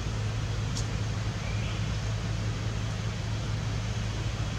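A steady low hum under a constant hiss, with a faint click about a second in.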